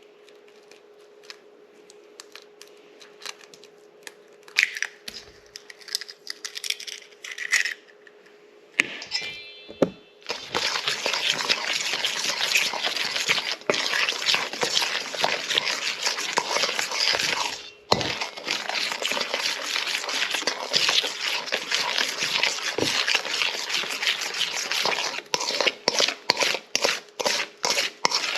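Butter, sugar, egg and lime juice being beaten together in a mixing bowl. A loud, continuous wet churning starts about ten seconds in after a quiet stretch with a few light clinks, stops briefly once, and turns choppy and stop-start near the end.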